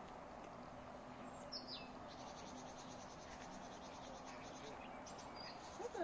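Songbird calls over steady garden background noise: a short falling call about a second and a half in, then a rapid trill of quickly repeated high notes for about two and a half seconds, and one more brief call near the end.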